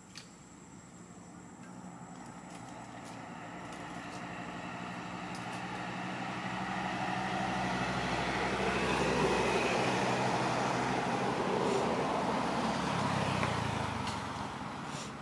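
A motor vehicle going past: its engine noise grows louder for about ten seconds, peaks, then falls away near the end.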